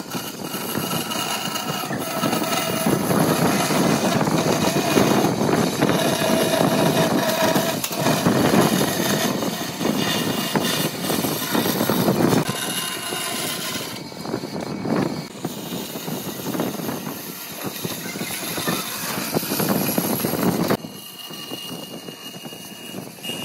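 Bandsaw running and cutting a curve through a wooden board, the cutting noise rising and falling as the wood is fed into the blade. It drops off sharply about three seconds before the end.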